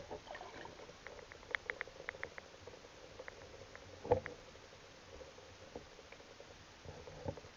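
Faint clicks and ticks picked up underwater by a submerged camera: a run of quick ticks between one and two and a half seconds in, then a single dull knock about four seconds in, over a faint steady hum.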